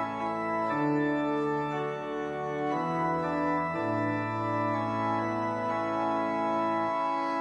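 Organ playing slow, sustained chords as the introduction to the responsorial psalm.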